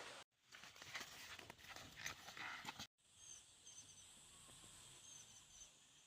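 Faint outdoor ambience: scattered rustling and light knocks, then after a cut a quiet hiss with a string of short, high chirps.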